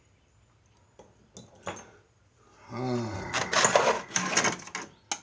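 Loose metal tools and parts clicking and rattling as they are handled in an old Craftsman toolbox: a few light clicks, then a louder run of clinking and rattling from about halfway through until just before the end.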